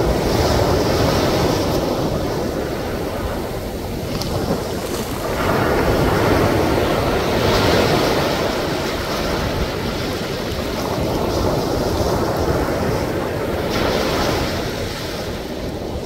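Sea waves breaking and washing up on a beach, swelling in three slow surges several seconds apart, each with a hissing wash.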